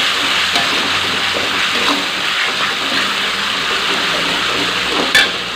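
Chili and tomato sambal paste frying in oil in a metal wok, sizzling steadily while a metal spoon stirs and scrapes through it, with one sharp clink near the end.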